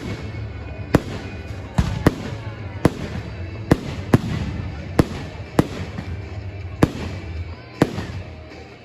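Fireworks going off: sharp bangs about once a second, over a continuous rumble of further bursts.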